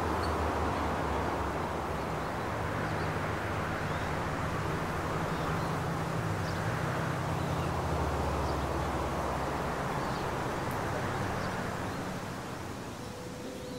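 Steady outdoor city ambience: a low hum of distant traffic with a few faint bird chirps.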